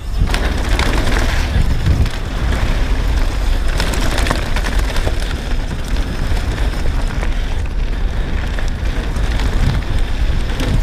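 Downhill mountain bike riding fast down a dirt trail: tyres rolling and crunching over the surface, with scattered clicks and rattles from the bike and a steady wind rumble on the action camera's microphone.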